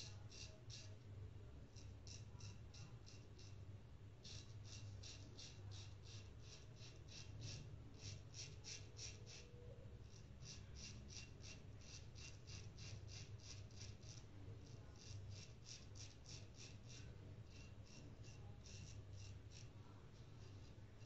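Safety razor scraping through lathered stubble on the neck in quick short strokes, about four or five a second, in runs broken by brief pauses. The scraping is faint.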